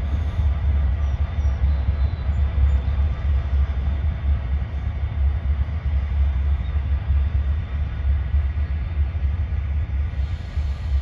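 Pair of CSX diesel locomotives running with a steady low rumble as they move slowly along a yard track.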